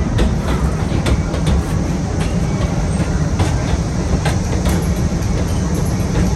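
Passenger train rolling along the track, heard from aboard a car: a steady low rumble with irregular clicks of the wheels over rail joints.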